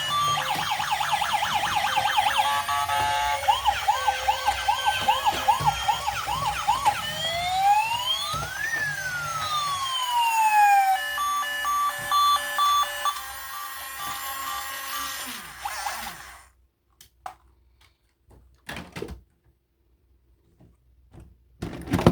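Toy emergency vehicle's electronic siren, cycling through fast yelping sweeps, slower wails, and rising and falling glides mixed with beeping tones. It stops about sixteen seconds in, and a few sharp clicks follow.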